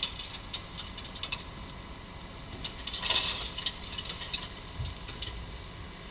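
Bobcat T870 compact track loader running, its diesel engine a steady low rumble under rattling, with a louder burst of rattle about three seconds in.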